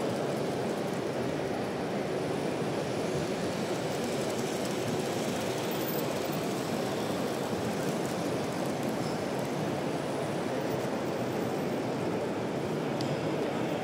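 Steady, even background noise of model trains running on a large model railway layout, mixed with the general noise of an exhibition hall.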